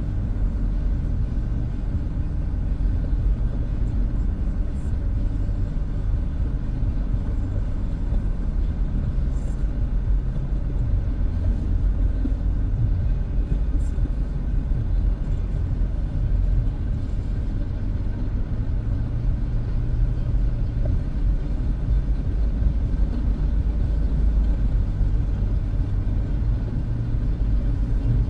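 Low, steady rumble of a vehicle's engine and drivetrain heard from inside the cabin while crawling in stop-and-go traffic.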